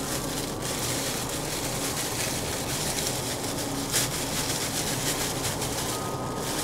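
Clear plastic bag rustling and crinkling as dried dates on a skewer are pulled out of it, with one sharper crackle about four seconds in.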